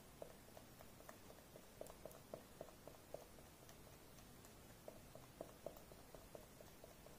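Highlighter tip dabbed repeatedly into clear slime, making faint, soft sticky ticks about three a second, with a pause of about a second and a half midway.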